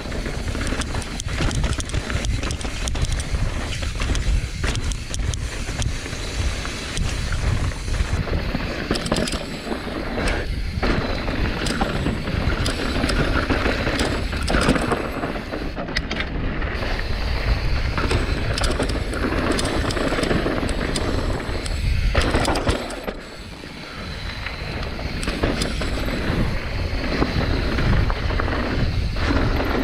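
Full-suspension mountain bike (Santa Cruz Bronson) ridden fast down a rocky trail: continuous rattling and clattering as the tyres and frame take hits from the rocks, over heavy wind rush on the microphone. The noise eases off briefly about three-quarters of the way through.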